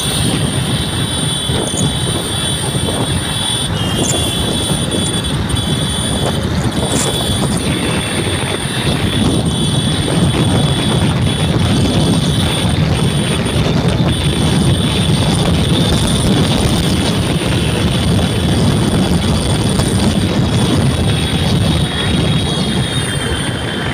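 Steady travelling noise from riding through a road tunnel: engine and tyre rumble echoing off the tunnel walls, with wind on the microphone and a steady high whine over it. It grows a little louder about ten seconds in, as a bus passes close alongside.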